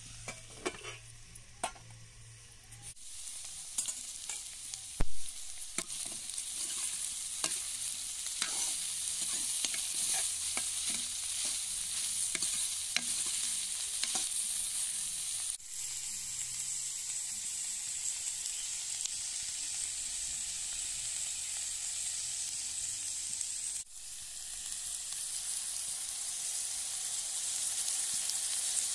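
Food sizzling as it fries in hot oil, with a utensil knocking and scraping against the pan as it is stirred. The sizzle grows louder about three seconds in, and there is a sharp knock about five seconds in.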